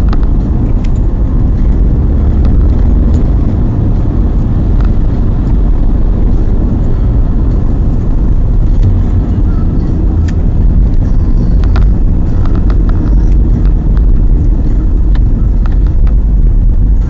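Car driving, heard from inside the cabin: a steady low rumble of engine and tyres on the road, with scattered light clicks and rattles.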